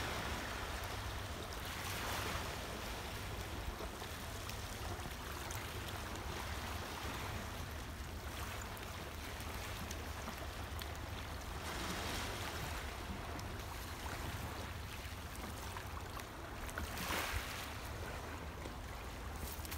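Small sea waves lapping at a rocky, shingly shore: a steady wash of water that swells gently a few times.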